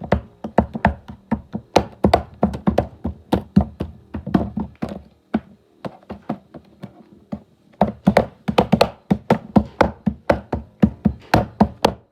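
A rapid series of sharp taps and knocks, about four to six a second, thinning out and going fainter for a couple of seconds in the middle before picking up again.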